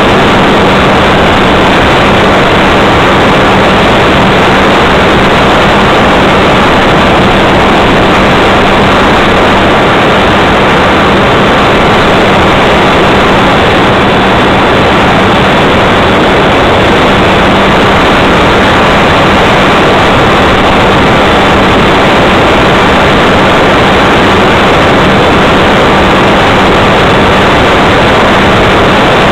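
Radio-controlled airplane's motor and propeller running at a steady throttle, heard loud from a camera on board with heavy wind rush over the microphone; the pitch holds constant with no climbs or dips in speed.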